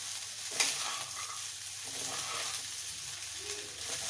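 Rice with potatoes, paneer and peas frying in oil in a pan, sizzling steadily while being stirred, with one sharp knock against the pan about half a second in.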